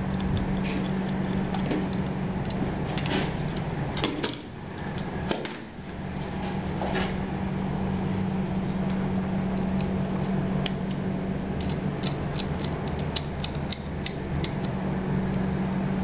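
Scattered small clicks and knocks as plastic switch housings and their wires are handled and unplugged, over a steady low hum.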